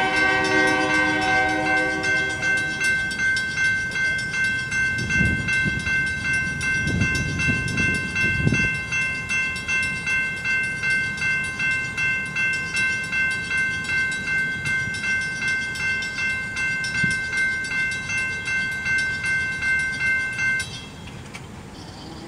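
Freight locomotive horn sounding for about the first three seconds over a railroad crossing's electronic warning bell. The bell keeps ringing steadily, about two strokes a second, and stops about a second and a half before the end as the crossing clears.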